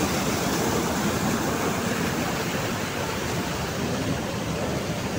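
Flowing river water rushing steadily, an even, unbroken noise.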